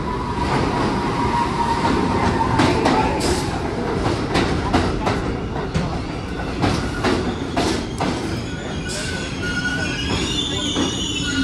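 New York City subway train pulling into the station. A whine falls in pitch over the first few seconds. Then comes a run of sharp wheel clatter over the rail joints, and from near the end the wheels squeal in high, wavering tones as the train brakes.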